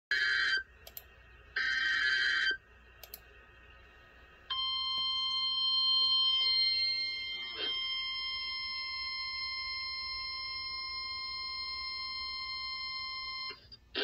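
Emergency alert broadcast on NOAA Weather Radio: two short buzzy data bursts of the SAME header, then the steady single-pitch 1050 Hz warning alarm tone for about nine seconds, announcing a Special Marine Warning. The tone cuts off abruptly.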